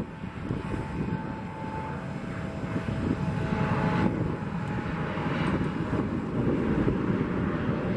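Embraer 175 regional jet's twin GE CF34-8E turbofan engines running at takeoff thrust as the airliner accelerates down the runway: a dense, steady rumble with a faint steady whine above it, building slightly over the first few seconds.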